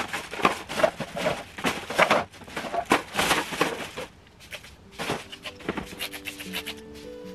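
Black plastic garbage bags rustling and crinkling as they are gathered and handled, dense for the first four seconds, then sparser. Soft music with steady notes comes in near the end.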